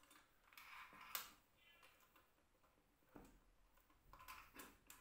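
Faint clicks and small knocks from a Tama drum throne being handled as its seat height is adjusted by hand, with a few scattered taps and a burst of several clicks near the end.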